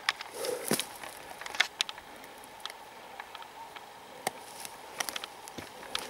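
Irregular rustling and sharp snaps of twigs and dry forest litter underfoot, over a faint steady hiss of running stream water.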